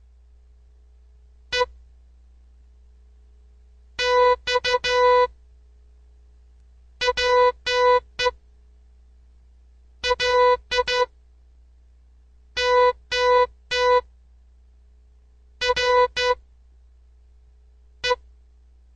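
Morse code played as short and long beeps of a single electronic tone: dits and dahs in seven groups with pauses of a couple of seconds between them. They are words sent for a listener to decode by ear.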